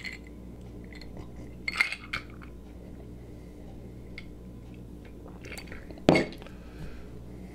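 A whiskey tumbler set down on a wooden bar top with a single sharp knock about six seconds in. Before it, faint sipping and breathing sounds around two seconds in.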